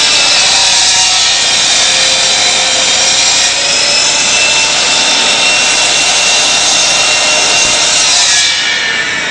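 Power chop saw cutting acrylic rod stock: a loud, steady cutting noise with a high whine that stops about a second before the end.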